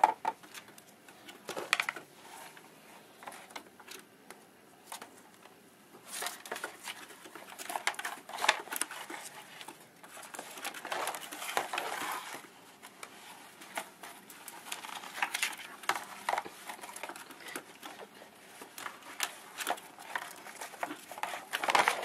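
Ferrets scrambling in and around cardboard boxes: rustling cardboard with light clicks and scratches of claws, in several spells with quieter stretches between, busiest in the middle.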